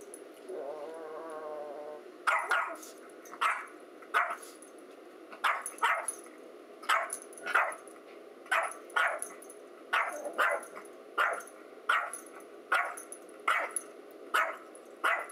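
A Yorkshire terrier barking at her own reflection in a mirror, with sharp, high yaps at roughly one a second. The barking follows a short, drawn-out growl at the start.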